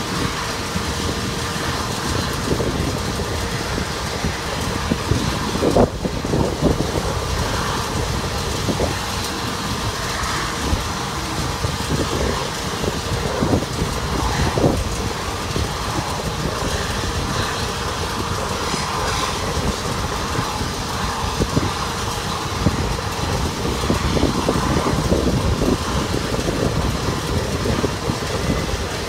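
Steady mechanical noise of an airport ramp, with a few short knocks and clanks scattered through it.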